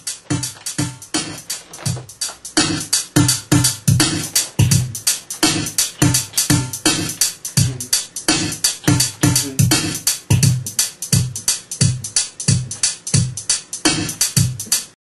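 Programmed drum-machine beat playing: deep kick drums that drop in pitch under quick, sharp snare and hi-hat hits in a steady, repeating pattern. It gets louder about two seconds in and cuts off suddenly at the end.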